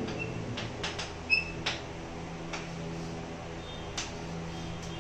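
Chalk on a chalkboard while writing: a series of sharp taps and scratches as the words are formed, with a few brief high squeaks, the loudest tap about a second and a half in. A steady low hum runs underneath.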